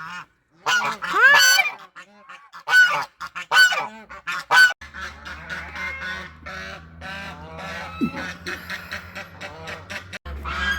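Domestic goose honking loudly several times in the first few seconds. After that, softer bird calls carry on over a low steady hum.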